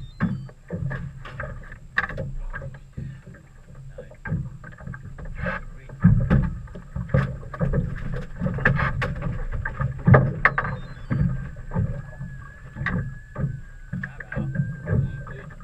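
Irregular knocks and thumps on a small boat over a low steady hum, the sound of gear and hull being bumped while afloat.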